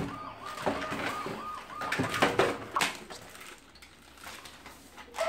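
Plastic toy parts and bagged pieces clattering and crinkling as a toddler pulls them from a box, with the sharpest knocks a little after two seconds and near three seconds. In the first two seconds a rapid series of high, repeated tones sounds, about four a second.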